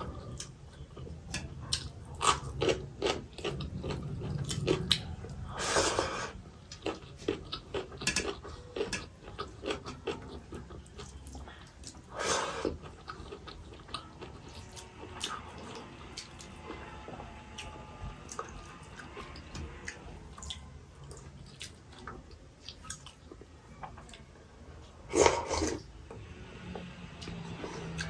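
Close-up eating sounds of rice and chicken-potato curry being eaten by hand: wet chewing and many small lip-smacking clicks, with three louder sucking sounds spread through, the loudest near the end.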